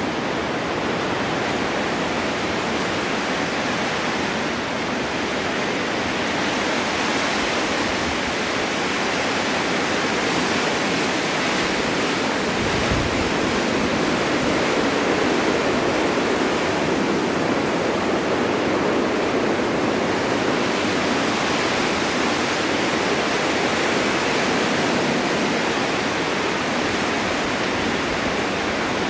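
Strong winter wind blowing in a snowstorm: a steady rushing that slowly swells and eases.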